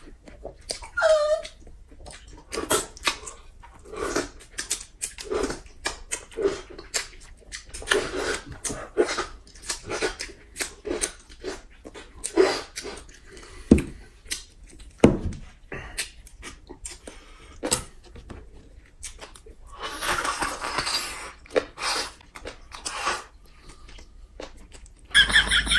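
Close-miked mukbang eating sounds: wet chewing, slurping and tongue-licking of a plate, made up of many small clicks and smacks. Two sharp knocks come in the middle.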